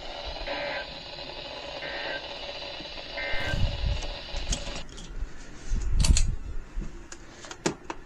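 Three short bursts of Emergency Alert System digital data tones, the end-of-message code that closes a weather radio alert. Each is a brief buzzy warble, the bursts about 1.3 seconds apart, over radio hiss. The hiss cuts off at about five seconds, and a low thump and a few sharp clicks follow.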